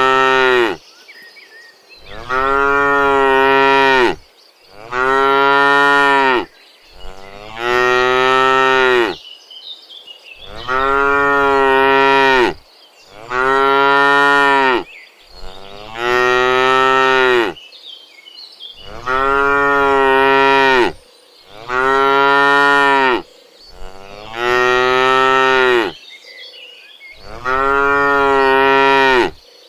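Cattle mooing over and over: about eleven long, loud moos of roughly two seconds each, one every two to three seconds, each rising slightly in pitch and then falling away.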